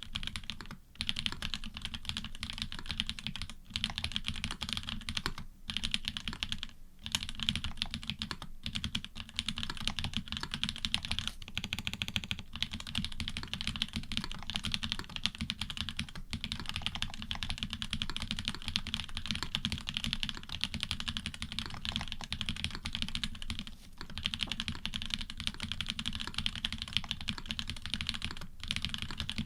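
Steady, fast typing on a custom Orion v2.5 mechanical keyboard with GMK keycaps on an FR4 plate. The switches are hybrids of Cherry bottom housings with Cream tops and stems, and the plate and switch foam dampen them. The keystrokes run in a dense stream broken by a few brief pauses.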